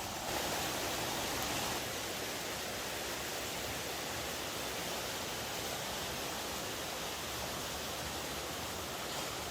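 Stream water rushing steadily, a little louder for the first second and a half.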